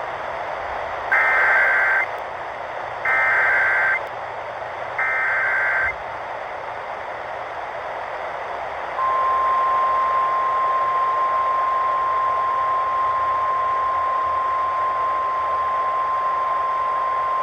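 Emergency Alert System activation heard over AM radio with a steady hiss throughout: three bursts of SAME digital header data, each about a second long and about two seconds apart. About nine seconds in comes a long, steady single-pitch attention tone.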